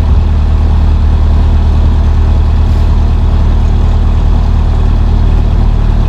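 Narrowboat's engine running steadily under way, a loud, even low drone.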